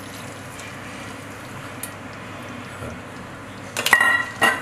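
Steady watery hiss from the pot of crab curry on the stove. Near the end a steel vessel or utensil clanks against the pot twice, with a short metallic ring.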